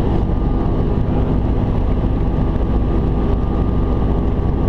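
Robinson R44 helicopter heard from inside the cockpit: a steady drone of the rotor and drivetrain with wind noise, and a faint steady high whine over it.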